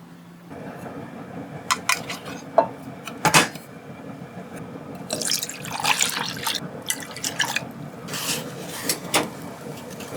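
Kitchen sounds: liquid splashing and pouring, with a few sharp clinks of dishes in the first few seconds and longer splashy stretches later on.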